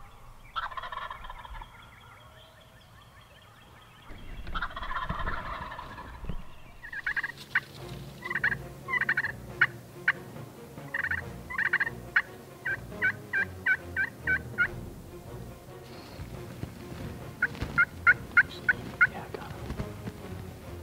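Osceola wild turkey sounds: a rattling gobble about four seconds in, then two long runs of short, evenly spaced yelps, about three or four a second.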